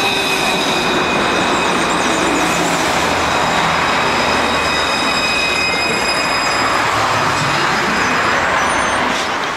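An Alstom Citadis 302 electric tram running past close by: a steady, loud noise of wheels on rail with several high, steady whining tones over it. The whines fade about two thirds of the way through.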